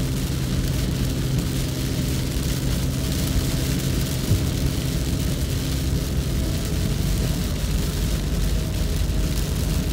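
Steady engine and road noise heard inside a car driving in heavy rain, with a hiss of rain and wet tyres over a low engine hum.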